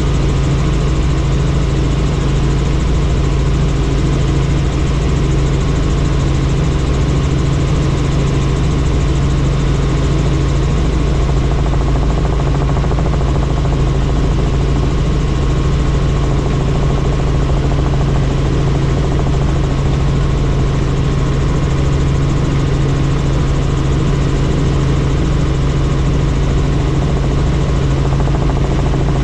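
Helicopter in flight: the engine and rotor make a loud, steady drone that holds unchanged throughout.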